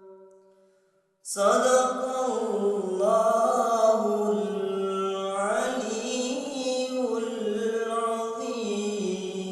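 A man reciting the Quran in melodic chant: a held note fades out, and after about a second's pause a new phrase begins with long drawn-out notes that rise and fall.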